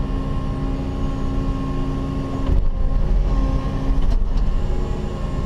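Cat 316E excavator's diesel engine and hydraulics running steadily while the bucket digs, heard from inside the closed cab. One of the steady tones drops out about two and a half seconds in.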